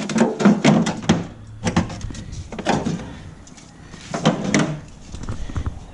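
Irregular metal knocks and clatter, as of brake parts and tools being handled and set down, several close together in the first second and again around four seconds in.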